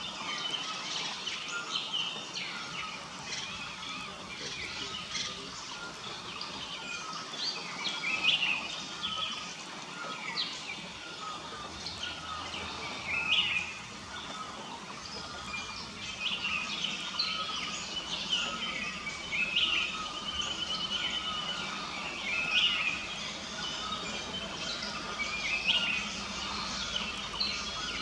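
Wild birds chirping and calling: short, high notes that come every second or two, with now and then a quick trill, over a steady background hiss.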